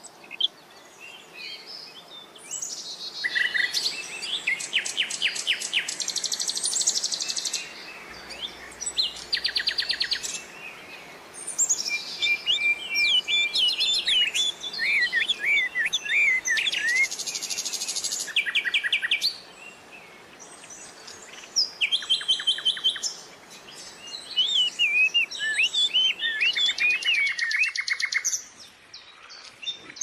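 Common nightingale singing: phrases of a few seconds built from rapid runs of repeated notes, buzzy trills and whistled, swooping notes, with short pauses between phrases.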